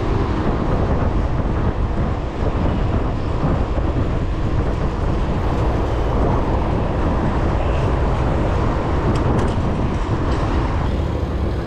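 Steady low rumble of riding a mountain bike on asphalt: wind buffeting the microphone mixed with tyre noise.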